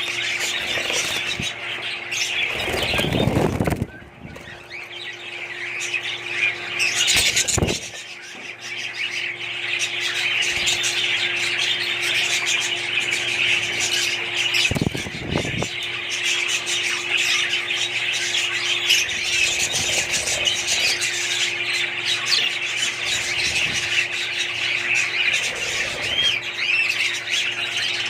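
A flock of budgies chattering and chirping without a break. A few low thumps or wing flutters come about 3 s, 7 s and 15 s in, over a steady faint hum.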